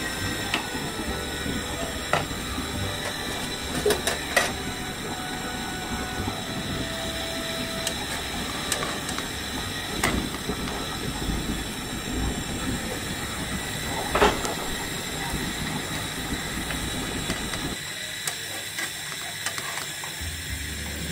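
Steady hiss from the pan on the stove, broken by a few sharp scrapes and taps of a spatula against a nonstick frying pan as a thin rice-flour chapti is loosened and lifted; the loudest scrape comes about two-thirds of the way through.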